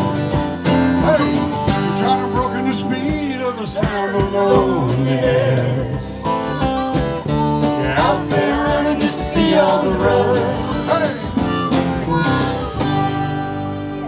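Live country-folk band playing an instrumental break: a harmonica takes the lead with bending notes over strummed acoustic guitar, electric guitar and bass.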